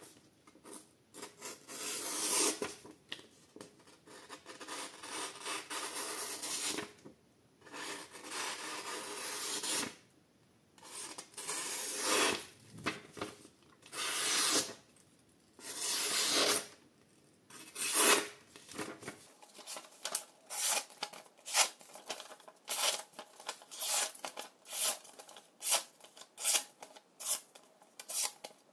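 Camillus Guise Camo folding knife blade slicing through material in cutting tests. The first two-thirds are long drawn slicing strokes; about two-thirds of the way in they give way to a quick run of short cuts, about two a second.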